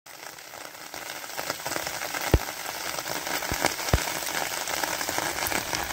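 Heavy rain falling on a flooded lane and its puddles: a steady hiss of drops on water that fades in at the start. Three louder close splats stand out near the middle, the first about two seconds in being the loudest.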